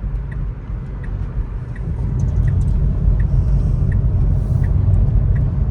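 Road and wind noise in a moving Tesla Model 3 with the windows down: a low rumble that grows louder about two seconds in as the car picks up speed. A light tick repeats about one and a half times a second, the turn signal clicking through the turn.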